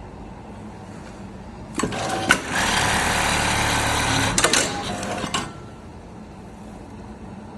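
Automatic laser pocket-opening sewing machine running one work cycle: a loud, steady mechanical run of about three and a half seconds, with sharp clicks as it starts and again near its end, over a low machine hum.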